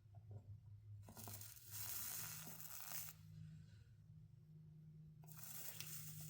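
Soldering iron melting solder along stained-glass seams, the gel flux sizzling faintly in two bursts, about a second in and again near the end, over a low steady hum.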